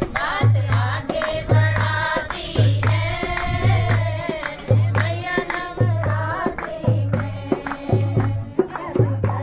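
A group of women singing a Hindu devotional song (bhajan) together, accompanied by a dholak hand drum: a deep stroke about once a second with lighter taps between.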